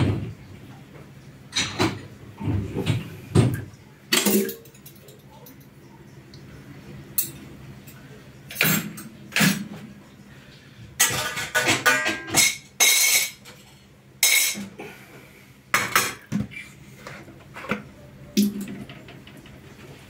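Dishes, pots and cutlery being handled, clinking and clattering in irregular knocks, with a busier run of rattling about halfway through.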